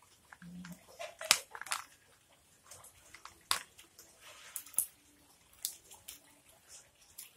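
Irregular light clicks and knocks of plastic play-dough molds and tools being handled and pressed inside a plastic basin.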